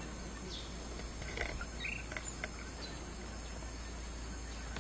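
Steady, high-pitched drone of tropical rainforest insects, with a few short bird chirps between about one and two and a half seconds in.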